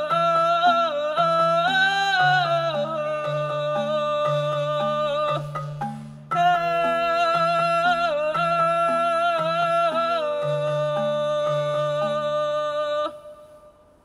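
Live folk music: a woman's voice sings a high wordless vowel with slides and wavers, over a slow pattern of low instrumental notes alternating between two pitches. The music breaks off briefly about six seconds in, then stops about a second before the end.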